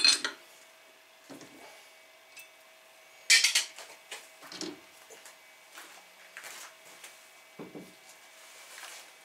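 Metal clanks and knocks from a steel three-jaw lathe chuck being worked loose and lifted off the spindle. There is a sharp clank right at the start and a louder ringing clank about three seconds in, with duller thumps and small clicks between.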